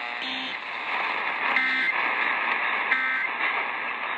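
Three short bursts of Emergency Alert System end-of-message data tones (SAME digital code), about 1.3 seconds apart, marking the close of the weather warning. They sound over a steady radio static hiss.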